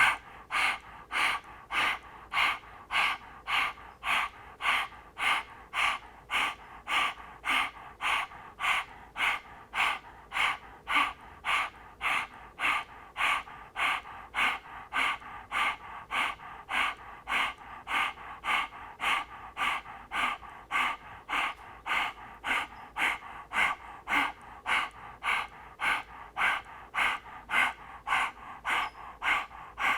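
A woman panting rhythmically through an open mouth with the tongue out, about two quick breaths a second, steady and even throughout: the 'puppy dog breath' pranayama, a fast breathing exercise.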